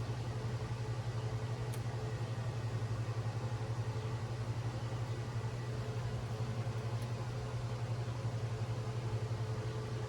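A steady low machine hum with a rapid flutter, with two faint small clicks, one about two seconds in and one about seven seconds in.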